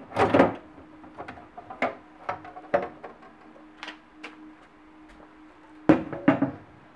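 Hinged plastic dust cover of a Fisher MC-3020 compact stereo being handled and lifted open. There is a clatter just after the start, then scattered light clicks and knocks, then a louder couple of knocks near the end, over a faint steady hum.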